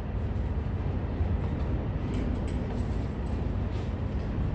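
Steady low rumble of an idling diesel semi-truck, with a few faint clinks as a cargo strap is handled about two seconds in.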